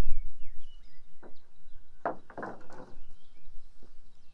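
Small birds chirping in short, scattered calls, with one brief louder noise about two seconds in.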